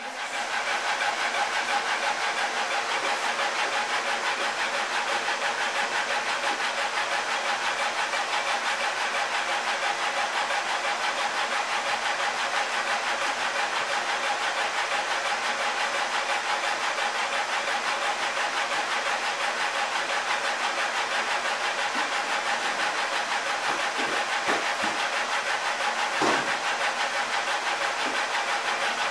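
Laser engraver running as it etches a design into a metal water bottle turning on its rotary attachment: a steady mechanical whir, with a couple of faint knocks near the end.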